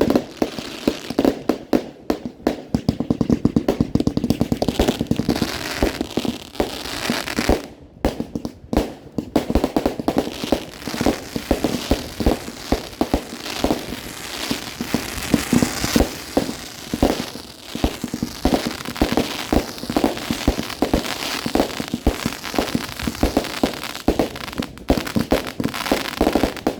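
Fireworks display at close range: a dense, continuous barrage of many bangs and crackles a second, with no let-up.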